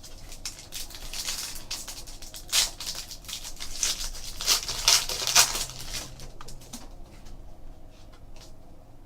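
A trading-card pack being torn open, its wrapper crinkling and rustling as the cards are pulled out and handled. A run of tearing and rustling noises, loudest in the middle, that dies down to light handling after about six and a half seconds.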